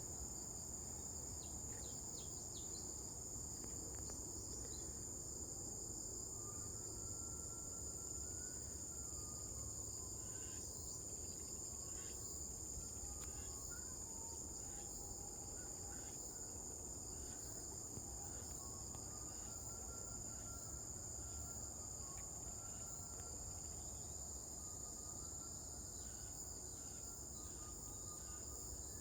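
Steady high-pitched insect chorus, cricket-like, droning without a break over a low, even rush of wind, with scattered short faint calls now and then.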